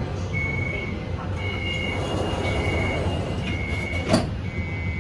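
Kaohsiung MRT train car's door-closing warning beeping, a high two-note tone repeating about once a second over the car's steady low rumble, with a single sharp knock about four seconds in.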